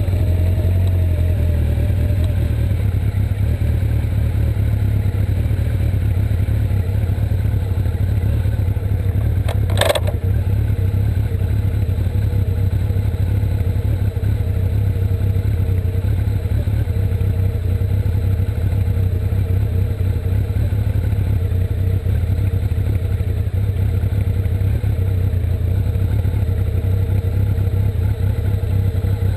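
Motorcycle engine running steadily at low road speed, with a single sharp click about ten seconds in.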